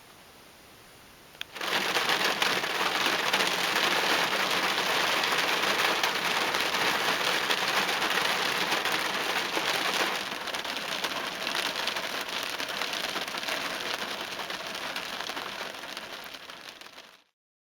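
Heavy rain falling, a dense hiss of drops that starts abruptly after a click about a second and a half in, eases a little about ten seconds in, and cuts off suddenly near the end.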